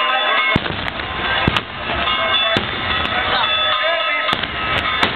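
Easter firecrackers and homemade dynamite bangers going off in a string of sharp bangs, about seven of them at irregular intervals, two close together about a second and a half in.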